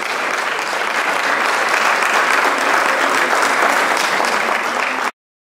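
Audience applauding: steady clapping that cuts off suddenly about five seconds in.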